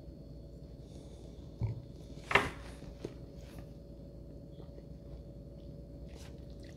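A beer glass set down on a cardboard coaster on a wooden table with a soft thump, followed about a second later by a short, sharp, noisy sound and a small click, over a faint steady room hum.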